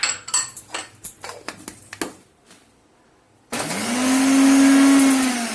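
Kitchen mixer-grinder (mixie) grinding green chillies, ginger, garlic, cumin and salt. A few clicks and knocks of the jar being handled come first. About three and a half seconds in the motor starts, speeds up to a loud steady whine, and near the end begins to wind down.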